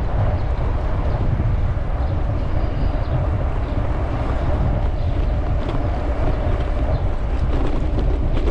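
Steady wind rush with a heavy low rumble on a GoPro's microphone while riding a bicycle.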